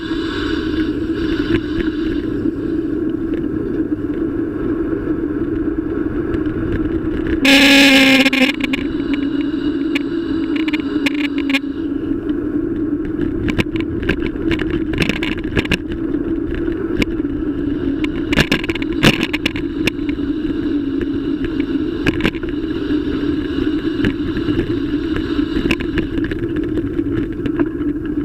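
Riding noise picked up by a bike-mounted camera: a steady hum with rattles and knocks as the mount shakes over the road. About eight seconds in there is a brief loud harsh sound.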